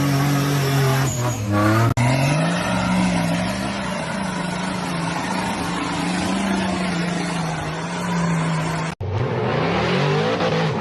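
Off-road 4x4 engines revving hard under load, the pitch rising and falling, with sudden cuts about two seconds in and near nine seconds as one clip gives way to the next.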